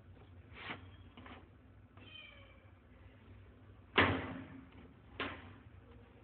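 A domestic cat meows once, briefly, about two seconds in. About four seconds in there is a sudden loud knock, the loudest sound here, and a smaller one about a second later.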